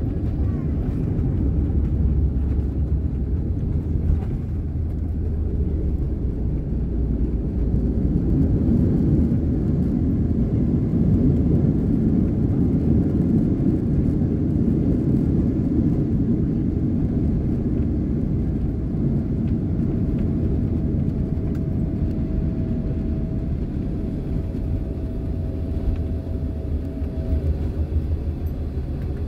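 Cabin noise of a Boeing 767-400ER on its landing rollout: a loud, steady low rumble from the engines and the wheels on the runway as the jet slows, swelling somewhat in the middle. A faint steady whine joins in past the middle and stops near the end.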